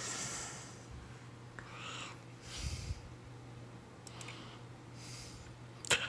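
A person breathing close to the microphone: a few soft breaths over a low, steady hum, with a couple of faint clicks about four seconds in.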